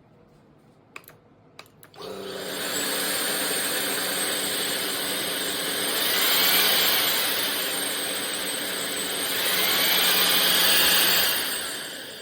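Ultenic U16 Flex cordless stick vacuum: a few clicks, then the motor switches on with a sudden start about two seconds in and runs with a steady whir. It swells louder twice and eases off near the end.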